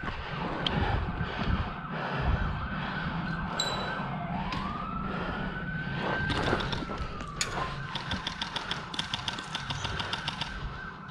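A siren wailing, its pitch sweeping up and then sliding back down. Near the end comes a rapid burst of airsoft gunfire, a quick run of even pops.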